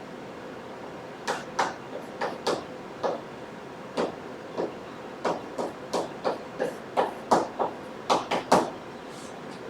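Writing on a surface: a run of short, irregular taps and clicks, about two or three a second, starting about a second in and stopping shortly before the end, over a steady background hiss.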